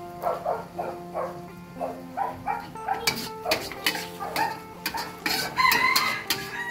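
A chicken clucking in a quick run of short calls, then a rooster crowing near the end, over steady background music. From about halfway, a metal spatula clacks and scrapes against the wok as the greens and egg are stir-fried.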